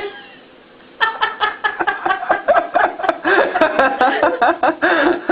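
A person laughing, starting about a second in and going on through the rest.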